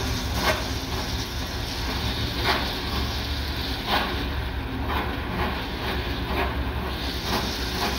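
Assault Fitness air bike pedaled standing: the fan spins with a steady whoosh and low hum, with repeated sharp clicks or knocks roughly once a second. The bike's drive is totally slipping.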